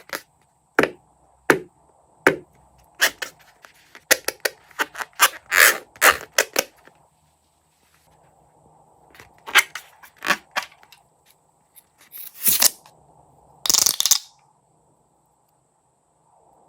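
Crunchy slime being squished and stretched, giving sharp popping and crackling clicks in irregular clusters, with two longer crackling bursts near the end.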